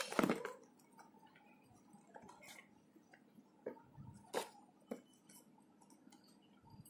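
Cardboard flashlight box handled and turned over in the hands: faint, scattered light taps and clicks, the sharpest about four and a half seconds in.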